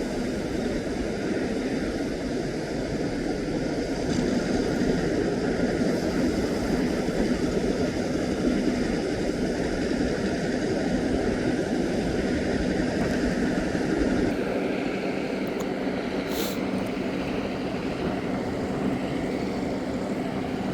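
A large tractor's engine running steadily with a low hum as it hauls a boat on its trailer out of the surf, over a haze of wind and waves.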